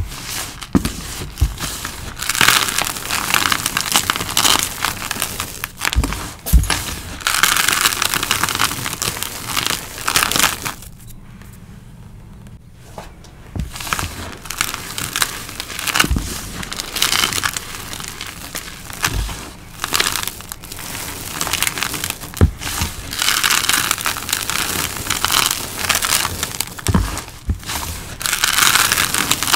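Hands crushing and squeezing crumbled pink powder made of peroxide-treated cornstarch, calcium carbonate and gym chalk, mixed with bits of dried rose petals and leaves. It crunches and crumbles in repeated handfuls, with a few soft thumps against the plastic tub and a quieter pause of about two seconds near the middle.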